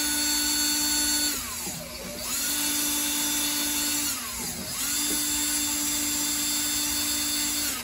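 Cordless drill spinning the guitar's tuning pegs to slacken the strings, its motor whine in three runs: the first stops about a second and a half in, the next two each spin up, hold steady and wind down, the last cutting off at the end.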